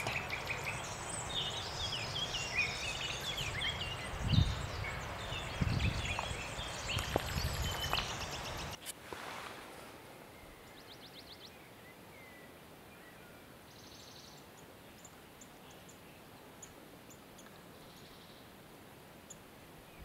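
Woodland birds chirping and singing, many short phrases overlapping, with a few dull low thumps around the middle. About nine seconds in it drops to faint ambience with only sparse high chirps and a quick series of high ticks.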